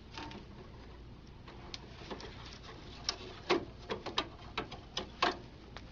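Plastic feed rollers in a Dell 5110cn laser printer being unclipped and slid off their metal shaft. Their locking tabs and the rollers give a run of sharp small clicks and taps, starting about two seconds in.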